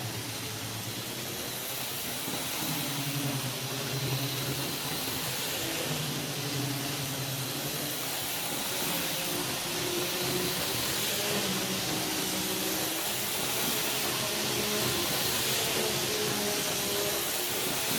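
N scale model locomotive running on KATO Unitrack tight-radius curves: a steady hiss of the small electric motor and the wheels on the rails, with a faint hum that shifts in pitch now and then.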